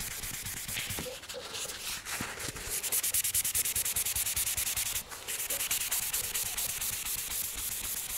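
A 1200-grit abrasive sheet dry-sanding a car's painted panel by hand, in fast, even back-and-forth strokes with a brief break about five seconds in. The sanding knocks down orange peel in the clear coat to prepare a blend area for painting.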